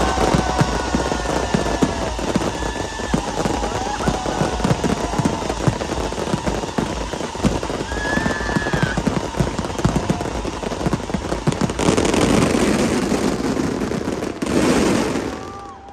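Fireworks going off in rapid succession: a dense string of bangs and crackles with whistling glides, swelling into a thick burst of crackle in the last few seconds before stopping abruptly, typical of a show's finale.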